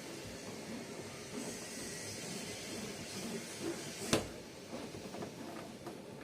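Faint rasping and scraping of hand work on the windscreen's hardened bonding, with one sharp knock about four seconds in.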